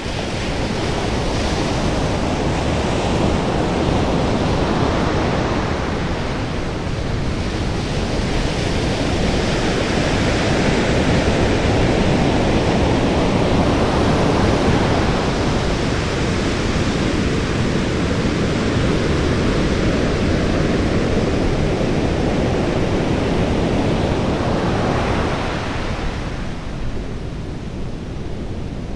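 North Sea surf breaking and washing up a sandy beach, swelling and easing in slow surges, with wind rumbling on the microphone.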